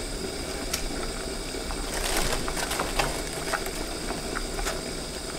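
Spicy shabu-shabu broth boiling in a large pot, a steady bubbling hiss with scattered small pops and clicks, most of them a couple of seconds in, as vegetables are dropped in.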